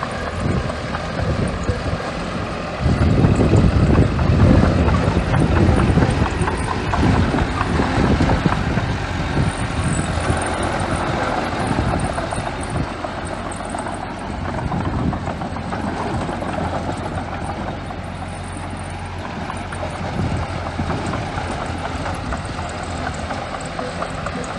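Small bulldozer's diesel engine running steadily while it spreads sand, getting louder for a few seconds about three seconds in.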